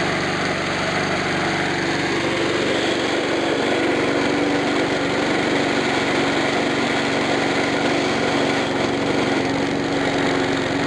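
Small push-mower engine running steadily after a new carburetor diaphragm kit has been fitted. Its blade, which has a twist in it, makes the mower vibrate quite a bit.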